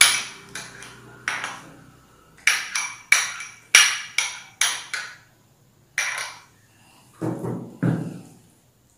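A steel spoon tapping and scraping against a small clear jar, about a dozen sharp ringing clinks, as thick date paste is knocked out into a bowl of idli batter. Near the end they give way to a few duller knocks as the spoon starts stirring the paste into the batter in the bowl.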